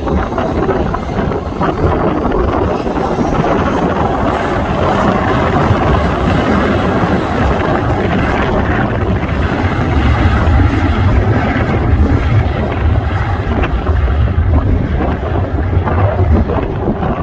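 Airliner jet engine noise, steady and loud, mixed with wind buffeting the phone's microphone.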